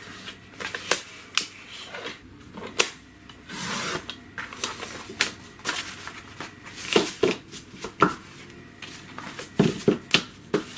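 Watercolor paper being handled and cut on a paper trimmer: irregular clicks and taps, with a few short swishing slices.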